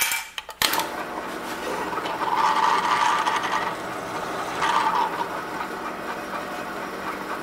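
A clunk about half a second in, then a drill press running steadily while a freshly sharpened countersink cuts into a steel block, in one longer spell and a second short one about five seconds in.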